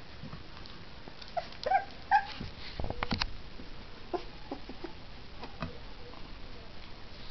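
Three-week-old puppies eating mush from a plate: three short high whimpers about a second and a half in, then wet smacking and clicking of lapping.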